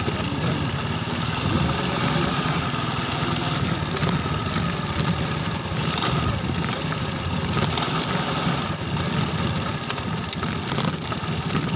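Rusi motorcycle's engine running steadily at low speed in second gear, with a constant hiss of road noise.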